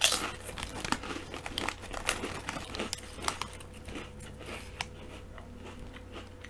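Crisps crunching as they are chewed close to the microphone, mixed with the crinkling of the crisp packet as the next crisp is taken out. The sound is a run of short, irregular crackles, strongest at the very start.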